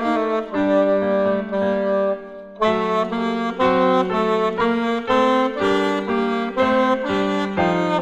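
Saxophone played by a young student, carrying a Russian folk melody in a series of separated notes, with a short break about two and a half seconds in before the line resumes.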